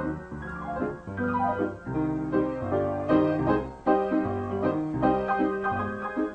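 Background piano music: a flowing run of notes over changing low bass notes.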